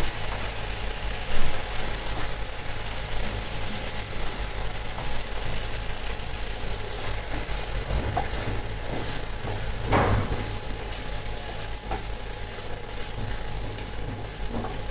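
Small puti fish sizzling as they fry in a mustard-oil masala in a karahi, with a steady hiss. A wooden spatula stirs them, knocking against the pan a few times, most sharply about a second in.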